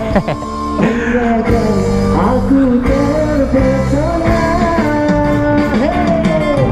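Live street concert: a singer holding long, slightly wavering notes over guitar and band backing, the last note sliding down near the end.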